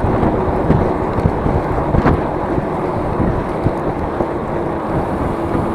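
Strong wind buffeting the microphone while riding, a loud steady rumble with a faint steady hum underneath.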